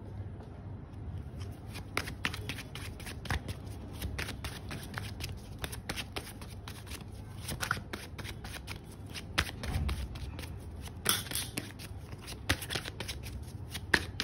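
A deck of tarot cards being shuffled by hand: a continuous, irregular run of soft card clicks and slaps as the cards are passed through the hands.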